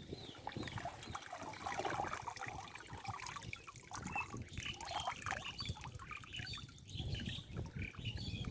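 Water splashing and trickling in a flooded pond, in short irregular sloshes.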